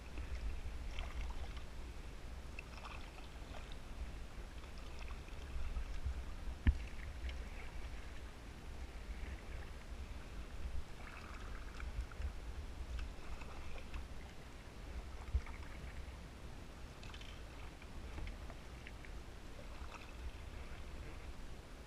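Kayak paddle strokes in the water, with scattered small splashes and drips off the blade, over a steady low rumble. A sharp knock stands out nearly seven seconds in.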